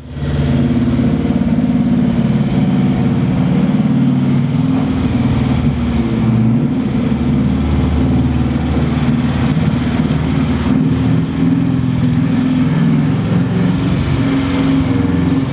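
ZAZ-966 Zaporozhets's air-cooled V4 engine running while driving off-road, its pitch rising and falling with the throttle, with brief dips about six and eleven seconds in.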